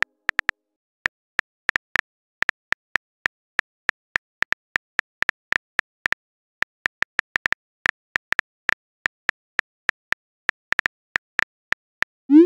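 Phone keyboard typing clicks, one short click per keystroke at an uneven pace of a few a second, as a text message is typed out. Near the end a loud rising swoosh marks the message being sent.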